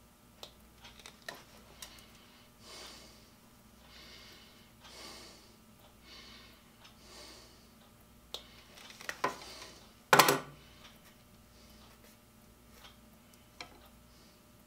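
Small clicks and rattles of a hand crimping tool and electrical wires being handled at a workbench, with a few soft breaths in the first half and a loud, sharp click-crunch about ten seconds in.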